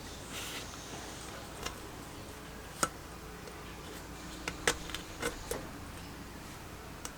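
A few separate light clicks and taps, about seven in all and loudest around the middle, over a faint steady hum.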